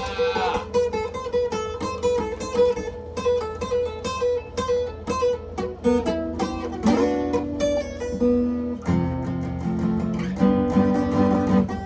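Guitar playing an instrumental passage: picked notes with one high note repeated over and over, moving into lower chords about nine seconds in.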